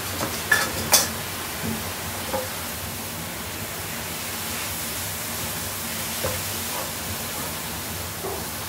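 Zucchini ribbons sizzling in butter in an electric skillet as a silicone spatula stirs them, a steady frying hiss. Two sharp knocks come about half a second and one second in.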